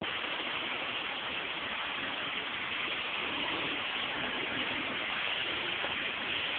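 Steady, even rushing hiss of water from a flooded street, with no breaks or single events.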